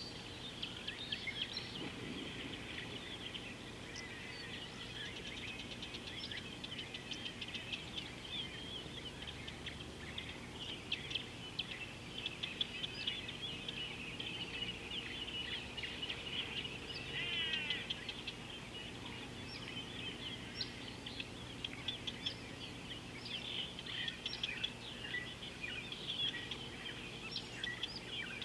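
A chorus of many birds chirping and twittering continuously, with a quick trill about seventeen seconds in, over a faint steady low hum.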